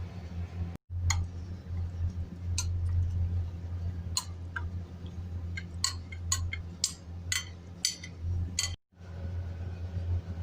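A spoon clinking against a glass dish about a dozen times in short irregular taps, busiest in the second half, over a steady low hum.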